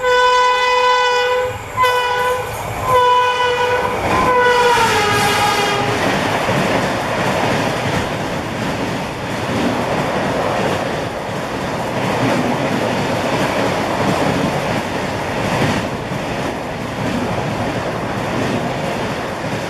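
Shatabdi Express locomotive horn sounding a long blast and then three shorter ones, the last dropping in pitch as the locomotive passes. Then the coaches rush past at full speed, with a steady noise of wheels on rail and some clatter.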